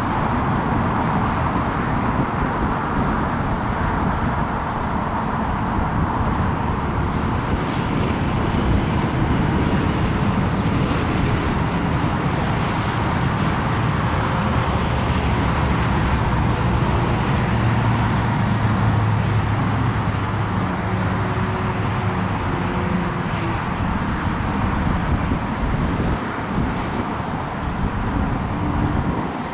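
Steady outdoor engine rumble, with a low hum that swells in the middle and fades again.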